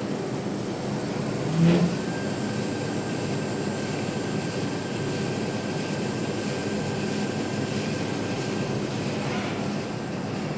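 Rollers of a motorcycle test stand driving a BMW motorcycle's front wheel, a steady mechanical running noise. There is a thump about a second and a half in, then a thin steady whine that fades out near the end.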